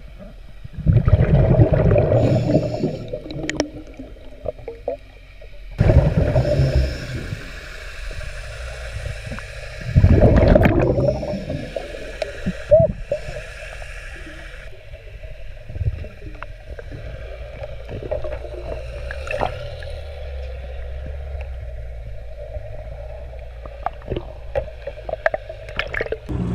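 Underwater sound of a scuba diver breathing through a regulator: three loud gurgling gushes of exhaled bubbles a few seconds apart, then a steady low hum with scattered small clicks.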